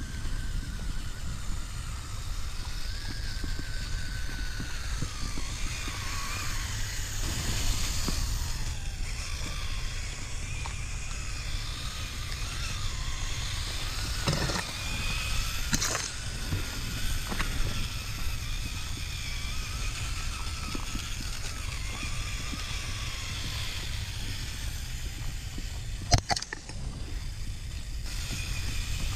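Axial Capra RC rock crawler's electric motor and gears whining, the pitch rising and falling with the throttle as it crawls over the dirt trail, over a steady low rumble. A few sharp knocks, the loudest near the end.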